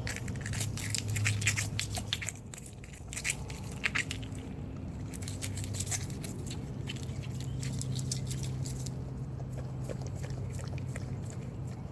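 Alaskan malamute chewing an egg, with sharp crunching clicks for the first four or five seconds, then only a few, over a steady low hum.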